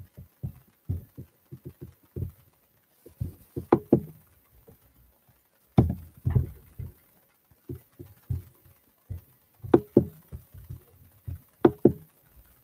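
Irregular taps and knocks of someone working a computer's keys and trackpad or mouse close to the microphone: mostly dull thuds, with a few sharper, louder clicks every couple of seconds.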